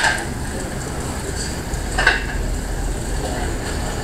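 Chopped green pepper, celery and onion cooking in bacon grease in a pot, with a steady hiss of cooking. A utensil knocks lightly against the pot twice, about two seconds apart.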